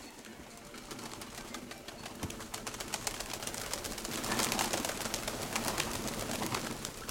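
Domestic pigeons cooing, with a dense run of quick clicks and rustling that builds up and is loudest about four to five seconds in.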